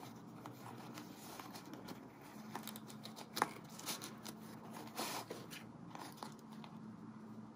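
Soft rustling and scraping of a cotton dust cover being unfolded and slid off a small coated-canvas coin purse, with a few light clicks and taps from the handling.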